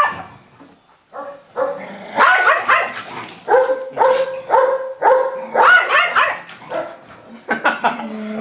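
Small pug-type dog barking and yelping over and over, in short high calls that come about twice a second, some held briefly on one note.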